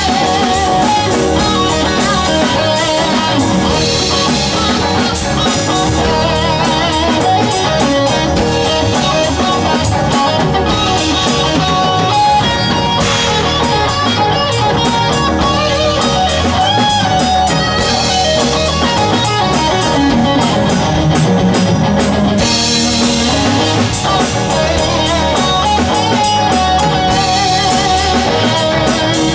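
Rock band playing live: electric guitars and a bass guitar over a drum kit, at a steady, full level.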